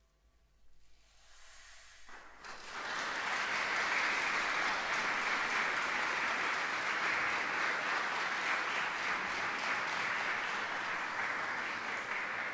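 Audience applauding. It builds up about two seconds in after a short quiet and then holds steady, easing off slightly near the end.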